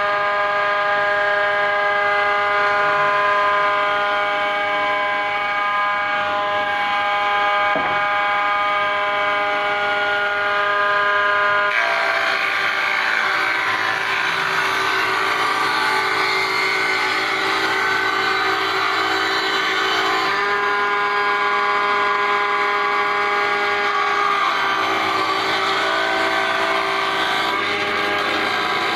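New table saw running with a steady, high motor whine. About twelve seconds in the sound turns rougher and noisier for some eight seconds, and again briefly near the end, before settling back to the steady whine.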